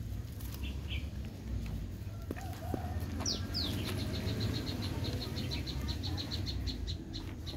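Bird calls: a couple of short high chirps under a second in, two quick downward-sliding whistles a little over three seconds in, then a rapid, even run of short high notes, about seven a second, to the end. A steady low rumble of wind or handling noise on the microphone runs underneath.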